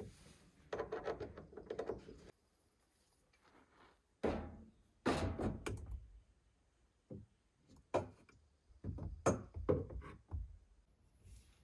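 Irregular knocks and clunks of PVC pipe and plastic fittings being handled and pushed together at an IBC tote's outlet valve, with short clattering runs between quiet gaps.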